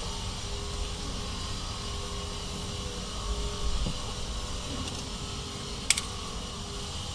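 Steady mechanical hum, with light handling noises as an ABS wheel-speed sensor is worked out of its bore at the wheel hub, and one sharp click about six seconds in.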